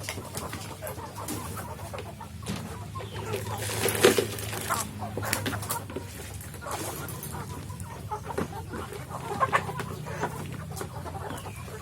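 Kampung chicken hens clucking at feeding time, many short calls overlapping, with one louder burst about four seconds in.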